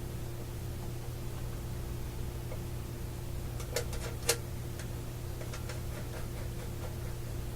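Steady low electrical hum from bench equipment, with a few light clicks and taps from hands working test leads. The two sharpest clicks come about four seconds in.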